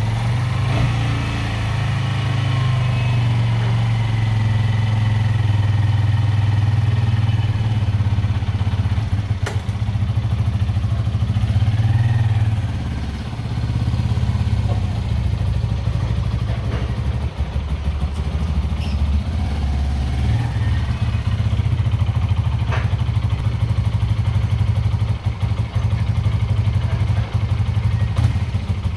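Suzuki Grasstracker Bigboy 250's single-cylinder engine running steadily, just started, with a brief dip in engine level about 13 seconds in.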